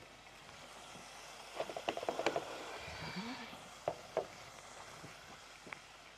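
Chicken strips frying in hot oil with a steady sizzle, overlaid by clinks and knocks of kitchen utensils and dishes: a quick clatter about two seconds in, then two single knocks around four seconds.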